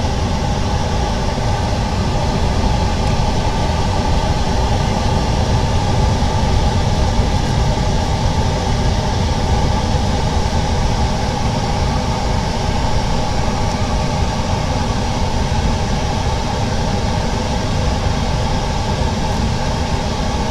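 A machine running steadily: an even rushing noise with a low hum beneath it.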